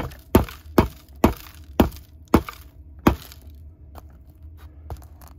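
A metal spoon striking the baked pastry lid of a takeaway pie again and again, sharp knocks about two a second that crack the crust, slowing and stopping about three seconds in.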